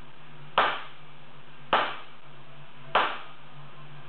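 Sledgehammers striking the hot wrought iron of an anvil being forged: three heavy blows, about one every second and a quarter, each with a short ring, over a steady low hum.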